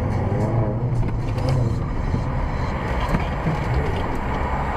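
Steady engine and tyre noise of a moving car, heard from inside the cabin.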